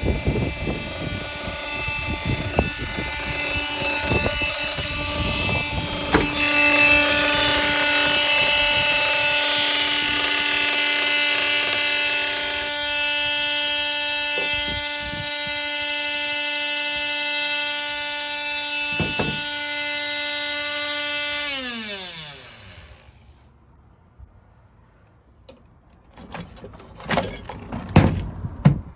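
A small electric motor running with a steady high whine, then winding down in pitch and stopping about three-quarters of the way through. Scattered knocks and clicks follow near the end.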